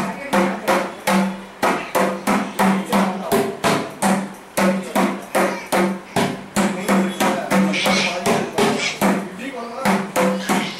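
Mridangam played solo: a fast, steady run of sharp hand strokes, about three to four a second, with the drum's tuned head ringing at a steady pitch between them.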